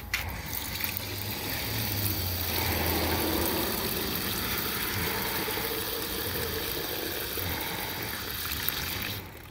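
Garden hose water pouring from a spray nozzle into a truck's radiator filler neck, topping up the cooling system with plain water during a radiator flush. A steady rushing hiss that cuts off just before the end.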